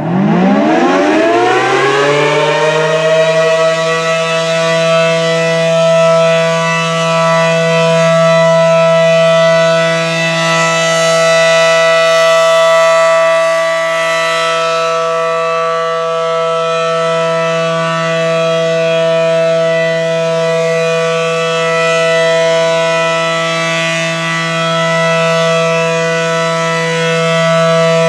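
ACA Allertor 125 electromechanical warning siren winding up from a standstill, its pitch rising over about three seconds, then holding one steady tone: the alert signal of a siren test. The loudness swells and dips slowly as the siren rotates.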